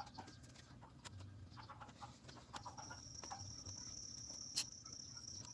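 Faint short animal calls, then a steady high-pitched whine starting about halfway through, with one sharp click near the end.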